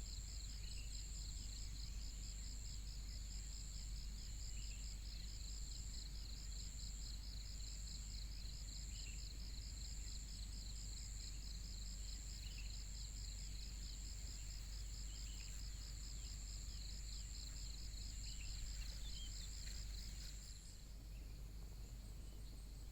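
Insects chirping in a steady, regularly pulsed chorus with a high continuous trill above it, and a few faint bird chirps. The pulsed chirping stops about 20 seconds in.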